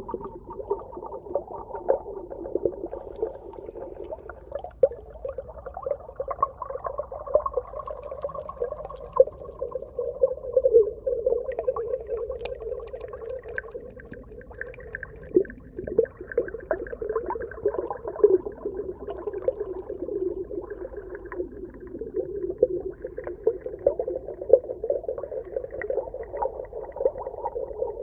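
Underwater ambience: a continuous muffled, wavering wash of water sound with many small crackles and pops throughout.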